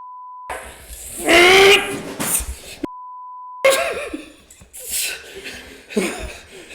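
Two censor bleeps, each a steady pure beep under a second long, about three seconds apart, with all other sound cut out while they play. Loud voices fill the gaps between and after them.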